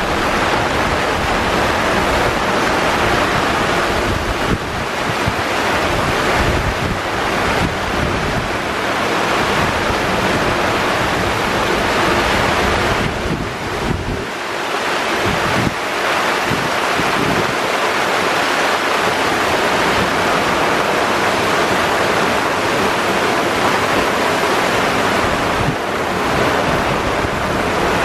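Squall wind gusting over the microphone in a sailboat's cockpit, over a continuous hiss of rain and breaking seas. The gusts ease briefly about halfway through.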